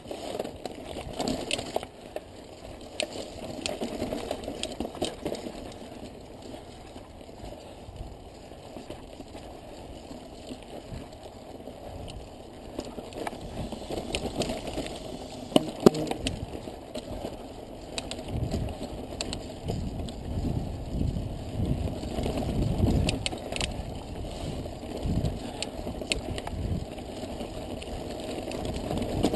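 Mountain bike riding slowly over a loose, rocky trail: the tyres roll over stones and the bike rattles, with scattered sharp clicks and knocks. One knock, about halfway through, is louder than the rest, and heavier thumps come in the second half.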